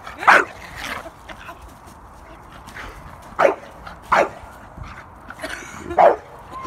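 Dogs barking at each other in rough play: about five short, sharp barks with pauses between them, the loudest near the start and near the end.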